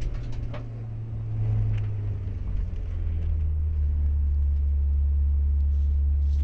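Rally car running on a stage, heard from a camera on the bonnet: a deep engine drone mixed with wind rumble. It drops a little in pitch about halfway through, then holds steady.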